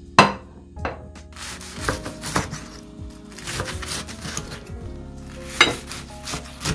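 Background music with irregular knocks and clinks of kitchen utensils on cookware or a cutting board, the sharpest just after the start and another near the end.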